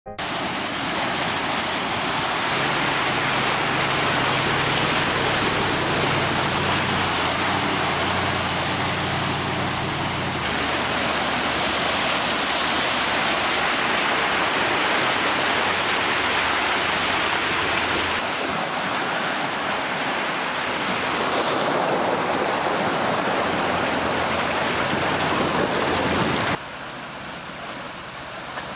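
Water rushing and splashing as a 2014 Range Rover Sport wades through a flooded stream, with a steady low engine hum under it in the first third. The sound changes abruptly about ten, eighteen and twenty-six seconds in, and is quieter in the last two seconds.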